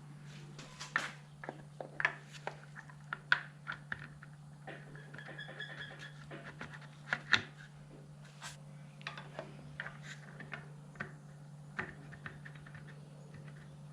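Irregular metallic clicks and knocks of engine parts and hand tools being handled while an LS1 V8 is reassembled, with two sharper knocks about three and seven seconds in. A steady low hum runs underneath.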